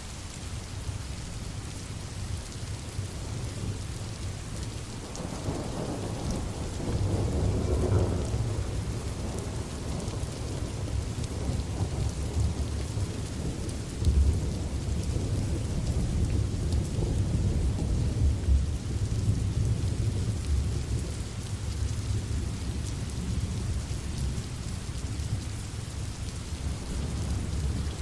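Steady rain with thunder rolling: a low rumble swells from about five seconds in, a sudden louder clap comes about halfway through, and the rumbling fades back under the rain.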